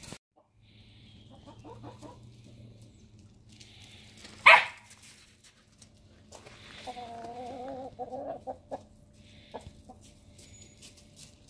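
Hens clucking, with a drawn-out wavering call from about seven to nine seconds in. A single short, loud sharp sound comes about four and a half seconds in.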